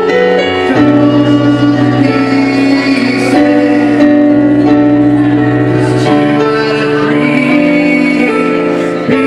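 Live song: a man sings long held notes into a microphone over electronic keyboard accompaniment, the harmony changing every couple of seconds.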